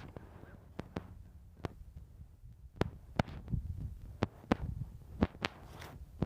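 Low rumble of wind buffeting the microphone, with about a dozen sharp, irregular clicks and taps scattered through it.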